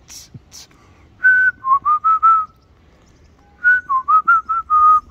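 A person whistling a tune close by: two short phrases of quick notes, the first about a second in, the second starting a little before the end and running on.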